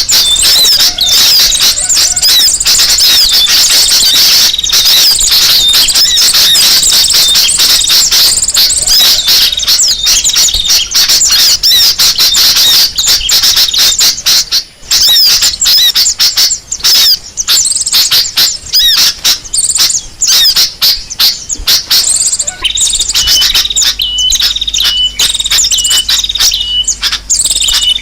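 Bird-lure recording of many small birds calling at once: a loud, dense chatter of rapid, overlapping high chirps and squeaky notes. In the last few seconds a short repeated note, about once a second, stands out over the chatter.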